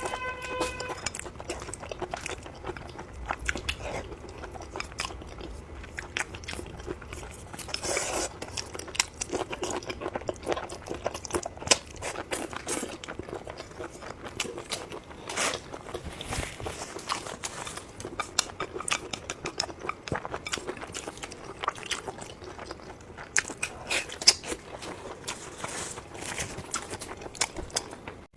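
A person chewing and biting food close to the microphone, a steady run of small irregular mouth clicks and crunches.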